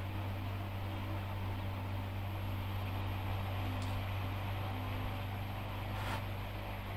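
A steady low mechanical hum under a constant hiss. A faint click comes about four seconds in and a short scrape about six seconds in, as metal engine parts are handled.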